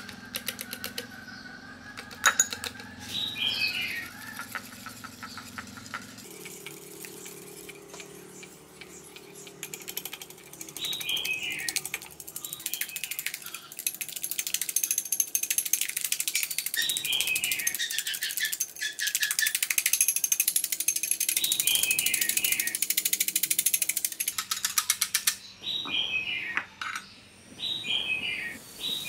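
Metal wire whisk beating eggs and flour in a ceramic bowl: a fast, even clatter of the tines against the bowl. It comes in long runs, loudest in the middle, with short high squeaks recurring every few seconds.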